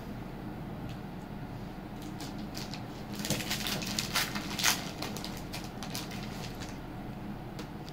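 Beaded jewellery being handled: a run of light clicks and rustles, densest around the middle.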